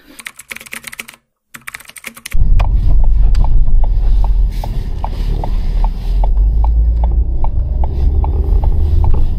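A few seconds of clicks and rustling, a moment's silence, then the inside of a moving car: a steady low engine and road rumble with the turn indicator relay ticking evenly, about two and a half ticks a second.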